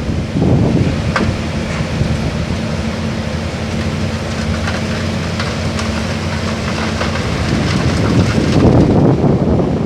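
Hydraulic excavator's diesel engine running with a steady hum and a few sharp knocks, growing louder and rougher from about three-quarters of the way through as the machine works under load.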